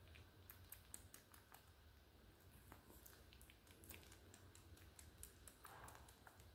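Faint, quick mouth clicks and ticks from an otter pup mouthing a fleece blanket, with a brief soft rustle near the end.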